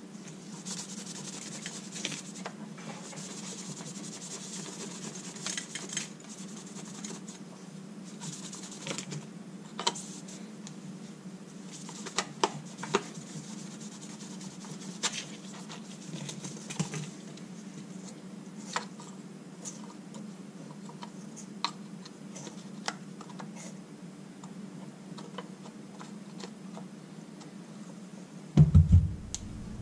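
A microfiber cloth rubbing and wiping over a small plastic solar-lamp panel, with scattered light clicks and taps as the plastic housing is handled. A steady low hum underneath, and one loud low thud near the end.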